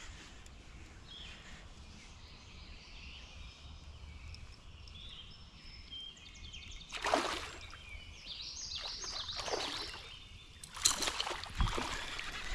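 Kayak paddle strokes splashing in the river, three or four of them in the second half. Birds chirp over a quiet background before the strokes start.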